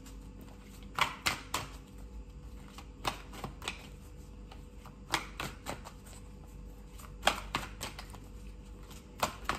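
A tarot deck being shuffled by hand, the cards flicking and slapping against each other in irregular clusters of sharp taps every second or two.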